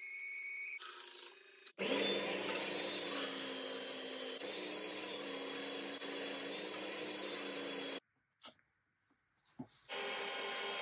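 A sequence of workshop power tools on a small wood block. It opens briefly with a bandsaw. Then, from about two seconds in, an oscillating belt sander runs steadily for about six seconds as the block is pressed against the belt. After about two seconds of near silence with a few clicks, a Bosch PBD 40 bench drill press is running near the end.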